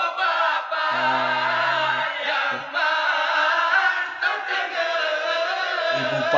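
A group of young men singing together, a lead voice into a microphone with the others joining: a chant sung to wake people for the pre-dawn sahur meal in Ramadan.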